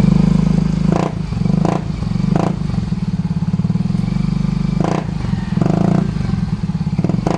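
Yamaha Mio i 125 scooter's single-cylinder engine idling through an ORBR aftermarket exhaust pipe, a steady low pulsing exhaust note, with a few brief sharper crackles on top.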